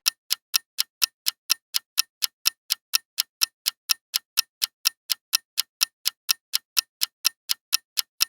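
Clock-style countdown timer ticking steadily, with sharp ticks about four times a second.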